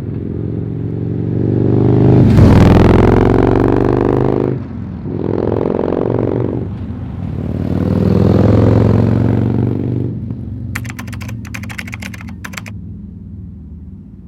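Harley-Davidson touring motorcycle's V-twin running through Vance & Hines Monster Rounds slip-on mufflers and Power Duals headers. The engine note rises in three surges with two brief drops between them, then fades away steadily. A short burst of rapid clicking comes near the end.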